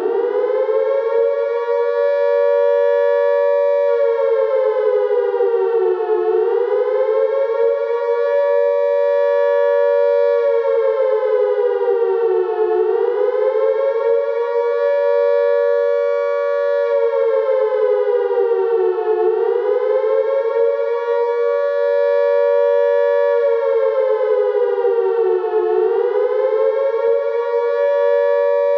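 Civil-defence air-raid siren sounding the attack signal: it finishes its climb to full pitch about a second in, then holds a steady wail that sags in pitch and climbs back four times, about every six and a half seconds.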